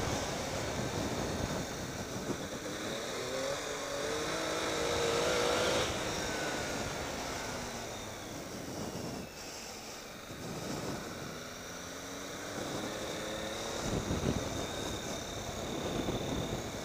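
Triumph Tiger 800 XCx's three-cylinder engine pulling along a dirt road. It rises in pitch under acceleration a few seconds in, eases off around the ninth second, then climbs again, over a steady rush of wind noise.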